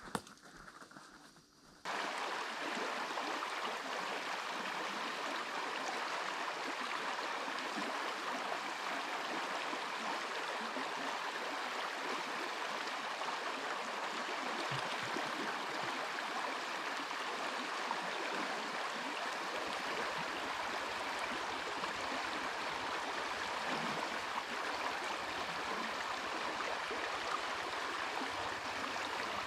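Shallow stream rushing over a rocky riffle: a steady rush of water that comes in abruptly about two seconds in and holds even throughout.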